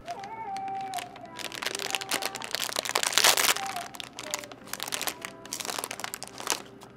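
Plastic snack packet crinkling and crackling as it is handled, in a run of sharp bursts, loudest about three seconds in.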